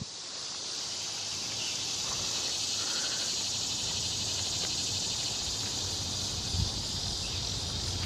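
Steady high-pitched chorus of insects, with one brief low thump about six and a half seconds in.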